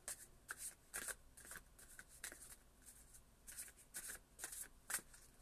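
Tarot deck being shuffled by hand in an overhand shuffle: faint, brief swishes of cards sliding off the deck, a few a second at uneven intervals.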